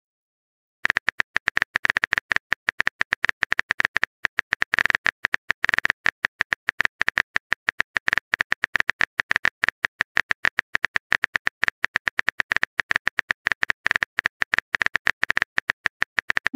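Rapid keyboard-typing click sound effect of a texting-chat app: a quick, irregular run of short clicks, several a second, starting about a second in.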